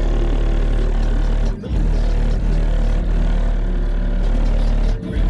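Re Audio XXX car subwoofers in a new enclosure playing loud, deep sustained bass notes, heard from outside the car. The bass cuts out briefly about a second and a half in and again near the end.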